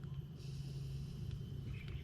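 Outdoor rural ambience: a steady low rumble with a faint, steady high insect drone and a few light clicks.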